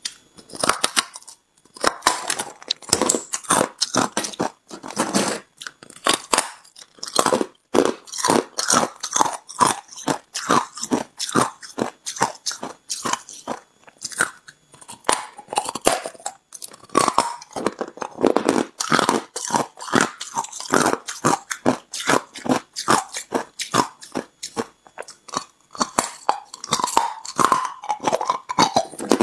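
A person biting into and chewing chunks of white ice close to the microphone: a fast, continuous run of sharp crunches, several a second.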